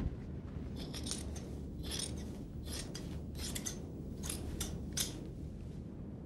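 An irregular series of about a dozen short, crisp scraping strokes over a low steady hum.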